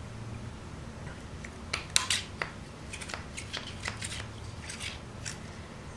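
Small metal parts of a Tippmann TiPX paintball pistol clicking and tapping in the hands as the hammer, valve and spring are fitted into the metal chamber sleeve. The light clicks come in an irregular run starting a little under two seconds in.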